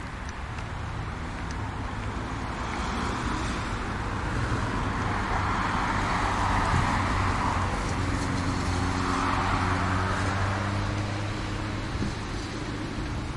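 Road traffic: cars passing on the street, a steady tyre-and-engine hiss with a low engine hum, growing louder through the middle and easing near the end.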